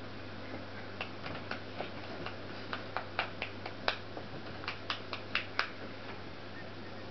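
An irregular run of about fifteen sharp little clicks, starting about a second in and stopping a second and a half before the end, over a low steady hum.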